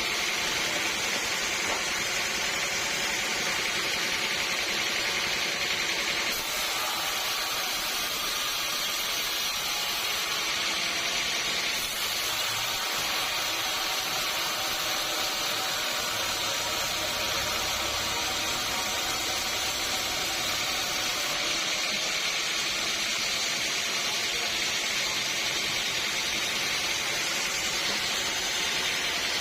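Sawmill saw running and cutting through a teak log: a steady machine noise with a hissing edge. Its tone shifts abruptly a few times.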